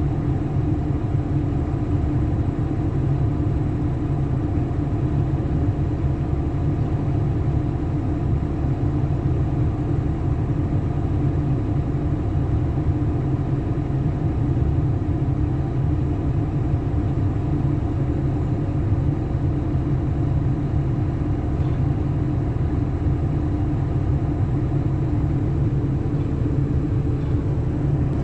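Zoomlion excavator's diesel engine running steadily under work, an even low drone that holds level throughout.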